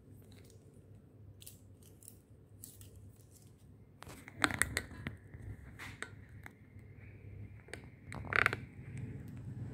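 Metal ear-cleaning tools clicking and scraping close to the microphone: a run of short, sharp clicks, loudest about four and a half seconds in and again about eight seconds in, over a low steady hum.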